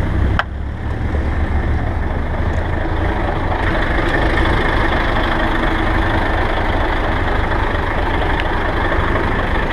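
MAZ truck tractor's diesel engine idling steadily, with a short knock about half a second in.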